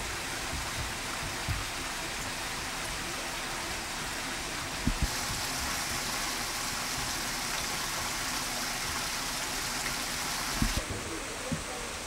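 Steady rushing noise like running water, brighter in its upper range from about five seconds in until shortly before the end. A few short, soft low thumps come through it.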